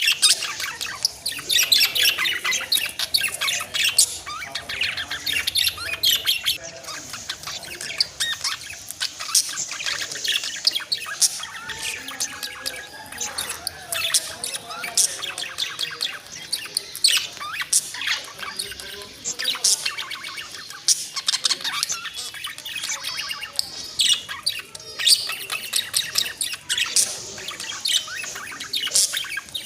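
Budgerigars chattering without pause: a busy stream of quick chirps, squeaks and warbles, the contented chatter of happy budgies.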